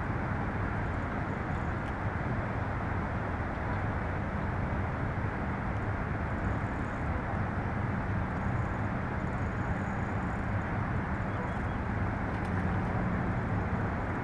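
A steady, unbroken low rumble of outdoor background noise with a faint hum underneath.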